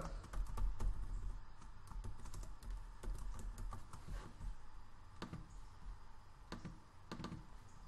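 Light, irregular clicking of computer keyboard keys and a mouse, with a few sharper clicks in the last three seconds, over a faint low hum.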